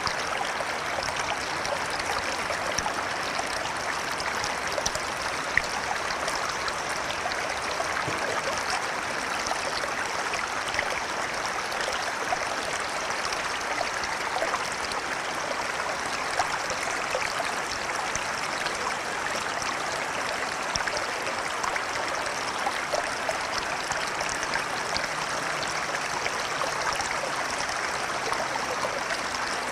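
Flowing river: a steady rush of water with small scattered splashes.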